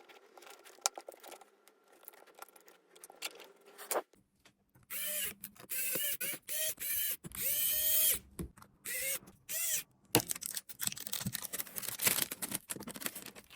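Small electric screwdriver whirring in a run of short spurts, each spinning up and dropping off, as screws are driven in to fit the new MacBook Pro battery. Light clicks and taps of handling come before and after.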